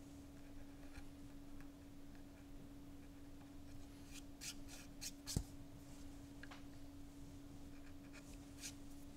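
A small palm carving tool cutting short strokes into a blackened wooden panel: faint scratchy cuts, a quick run of them about four to five seconds in ending in a small knock, and a couple more near the end, over a steady low hum.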